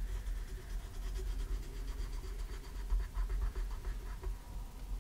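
Watercolor pencil scratching over card in a run of quick, short colouring strokes, over a steady low hum.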